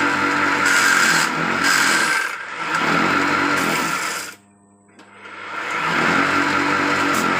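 Small petrol engine of a water pump converted to drive a wood lathe, running steadily. Its sound dips briefly a few seconds in, then drops off sharply about halfway and builds back up over the next second or so.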